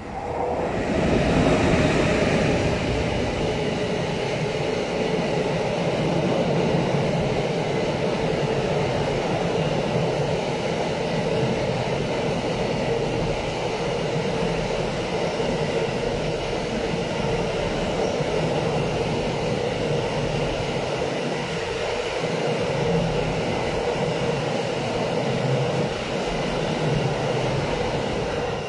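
Freight train of double-deck car-carrier wagons, hauled by an electric locomotive, rolling past close by. Steady rumble and clatter of wheels on rails, swelling about a second in as the locomotive reaches the spot and falling away sharply at the end as the last wagon passes.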